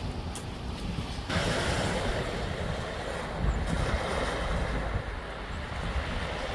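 A wood fire in a metal fire pit crackling with a few sharp snaps, then, from about a second in, the steady wash of sea waves on a rocky shore with wind rumbling on the microphone.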